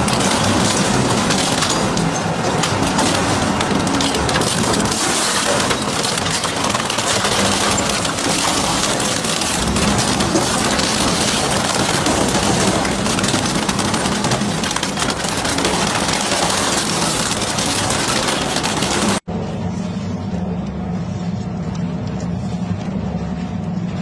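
Twin-shaft industrial shredder tearing apart a motorcycle: continuous loud grinding, cracking and crunching of metal and plastic. About nineteen seconds in it cuts suddenly to a quieter, steady machine hum of the shredder's blades turning.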